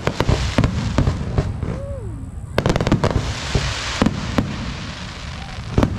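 Aerial fireworks shells bursting in quick succession: clusters of sharp bangs, with a rushing hiss between the volleys.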